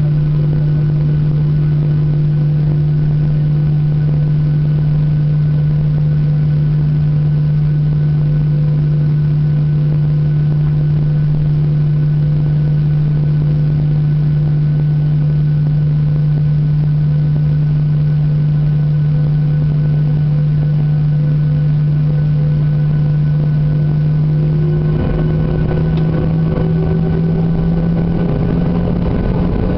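Steady low hum of a parked Boeing 737-800, heard from inside the cabin. About 25 seconds in, the sound changes and a second tone starts, slowly rising in pitch: a CFM56-7B engine beginning to spool up on start.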